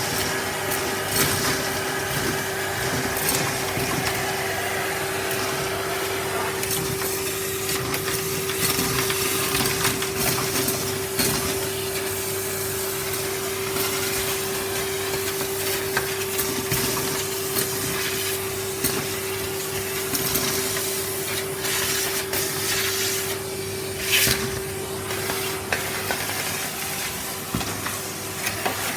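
Numatic Henry canister vacuum cleaner running with a steady motor whine, with irregular clicks and rattles of debris being sucked up the hose. Its owner finds the suction a bit weak and thinks the bag is full.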